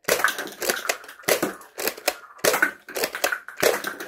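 Nerf Ghost Ops Shadow ICS-6 dart blaster being primed and fired in quick succession: a rapid series of sharp plastic clacks from the slide and spring shots, mixed with the clatter of plastic cups being knocked down by the darts.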